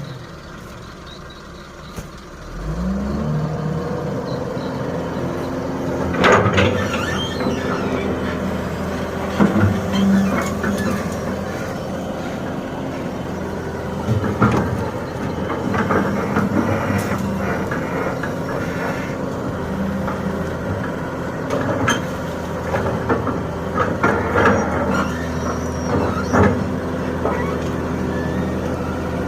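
Hitachi hydraulic excavator at work: its diesel engine revs up about two and a half seconds in and then runs steadily under load, with scattered knocks and clatters from the bucket digging and dumping sand.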